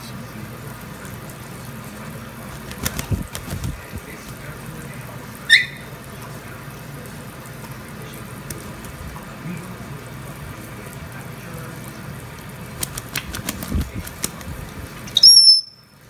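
Tap water running into a sink while a Congo African grey parrot bathes under it, with bursts of splashing wing-flaps about three seconds in and again near the end. The parrot gives a short rising squeak about five seconds in and a loud high whistle just before the end.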